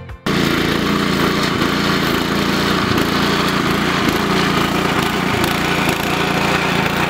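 Petrol-engine lawn scarifier running as it is pushed across a lawn: a steady engine drone under a dense, gritty rasp of its blades raking through turf and thatch. It starts abruptly just after the start and holds level throughout.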